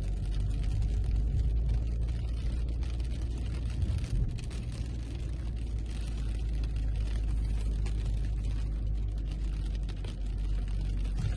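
Strong gusts of summer thunderstorm wind buffeting the microphone, a heavy, steady low rumble, with the first raindrops of the storm spattering.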